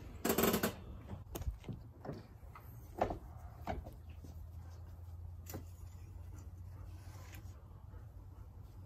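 A loud knock about a third of a second in, then scattered light clicks and handling sounds as the oil dipstick of a Porsche 996 flat-six is pulled and wiped with a rag, over a low steady hum.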